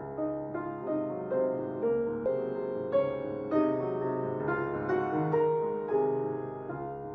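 Solo piano music: a slow melody of struck notes, each ringing and fading, over held low notes.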